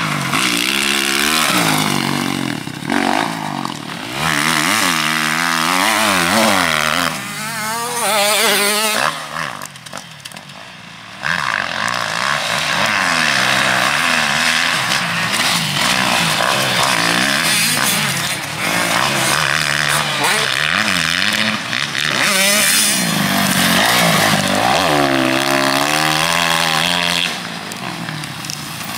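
Motocross bike engine revving up and down repeatedly as the rider works the throttle and gears around the track, with a noisy rush over it. The engine drops away for about two seconds near the middle, then picks up loud again.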